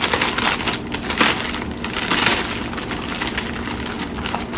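Crinkling and crackling of plastic packaging being handled and opened.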